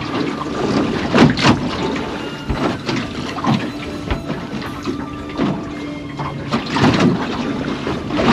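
Water slapping and splashing against a small boat's hull in irregular strokes.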